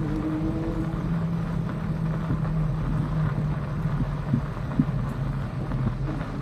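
Electric bike in motion: a steady low hum over a rumble, with wind on the microphone.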